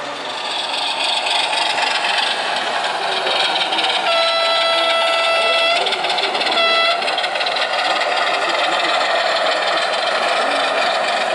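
O-scale model diesel locomotive sounding its horn: one long blast about four seconds in, then a short blast at the same pitch about a second later, over a steady rushing noise of the running train.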